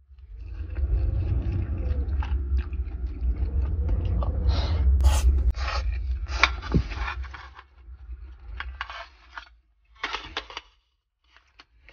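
Scraping and clicking of things being handled, over a low rumble that lasts for the first seven seconds or so and then drops away.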